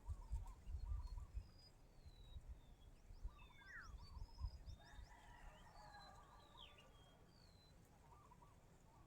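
Birds calling faintly: scattered short high chirps and whistles with a few falling whistled notes, busiest around the middle. There are low rumbling thumps in the first second and a half.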